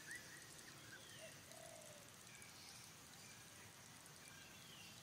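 Faint, quiet outdoor background with scattered wild bird calls: a few quick chirps at the start, a lower short call about one and a half seconds in, and thin falling whistles later on.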